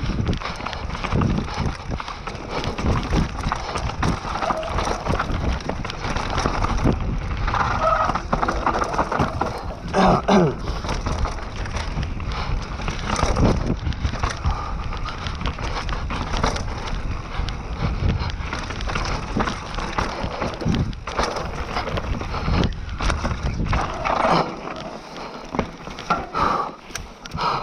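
Mountain bike riding fast down a dirt forest trail: tyres rolling over dirt and roots with frequent sharp knocks and rattles from the bike, over a steady low rumble. The rumble eases near the end.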